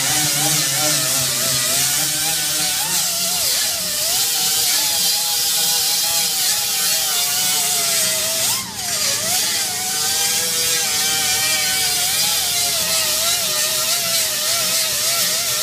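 Pneumatic die grinder with a small abrasive wheel grinding down weld seams on sheet steel, a whine over a hiss whose pitch wavers as the wheel is pressed into the metal. About nine seconds in it briefly slows and drops in pitch, then spins back up.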